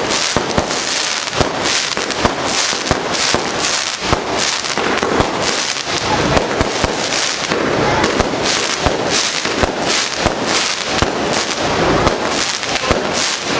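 A fireworks display going off overhead: a dense barrage of sharp bangs, many each second, over a continuous crackle of bursting stars.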